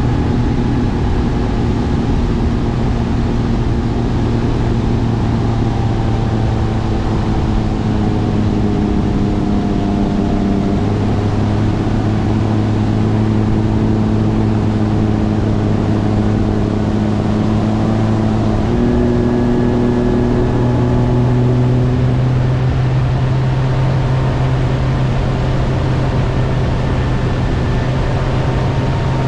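Bass boat's outboard motor running at speed across the water, a steady engine note that shifts slightly in pitch a couple of times, over rushing wind and water noise.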